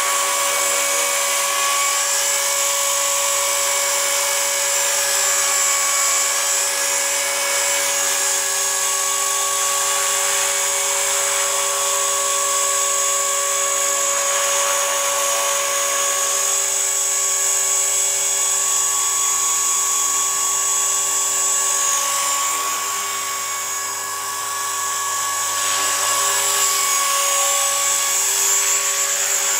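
EXI 450 SE electric RC helicopter hovering: a steady high whine from its brushless motor and gears over the rotor noise, with a slight dip in loudness about three-quarters of the way through.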